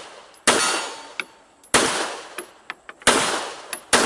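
Handgun fired in a steady string: four shots a little over a second apart, the last right at the end, each with a long echoing tail. Faint sharp ticks fall between the shots.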